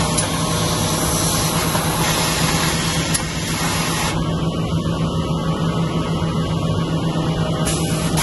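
Montex automatic sewing unit running: industrial overlock sewing heads and belt conveyors give a steady mechanical drone with a constant hum and a hiss, a single click about three seconds in.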